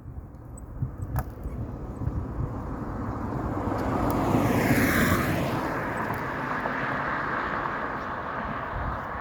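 A road vehicle driving past, its tyre and engine noise building to a peak about five seconds in and then slowly fading. There is a single sharp click about a second in.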